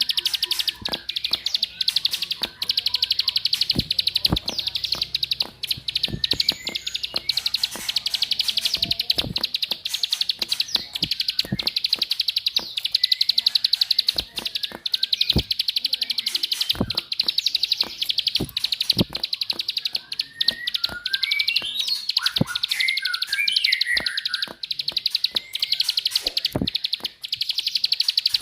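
Continuous, very rapid 'klik-klik' clicking call of a ciblek (prinia), a lure recording used to set other ciblek singing in their fast 'ngebren' song. A few separate chirping notes come in about three-quarters of the way through.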